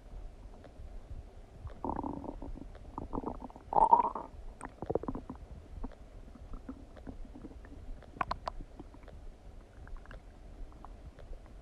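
Human stomach gurgling and rumbling while digesting a meal of donuts. A run of gurgles comes about two seconds in and the loudest gurgle about four seconds in; after that come scattered small pops and clicks.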